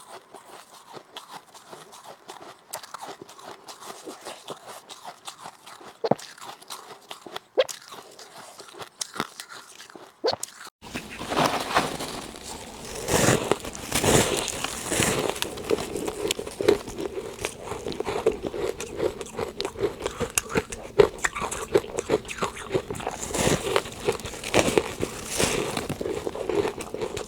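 A person biting and chewing soft, powdery freezer frost ('snow ice') up close. For roughly the first ten seconds there are only faint, sparse crackles, then about eleven seconds in it becomes a louder, steady run of crunchy bites and chewing.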